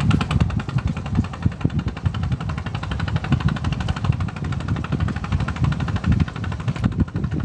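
Spinning reel being cranked to retrieve the line, giving a rapid, even ticking.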